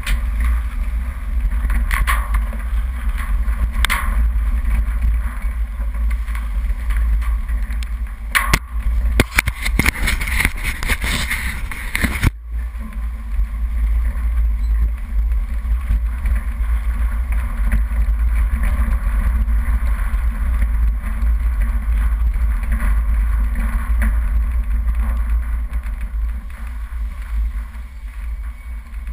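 Off-road 4x4 driving a rough dirt track, heard from inside the cab: a steady low rumble of engine and tyres, with a burst of knocks and rattles over bumps about a third of the way through that breaks off abruptly.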